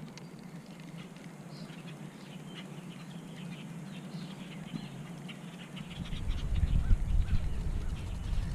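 Birds calling with many short, scattered high chirps over a faint outdoor hiss; a low rumble comes in about six seconds in.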